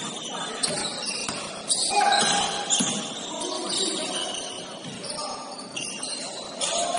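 Basketball game play on a gym court: sneakers squeaking in short high chirps, with the thud of a ball bouncing now and then.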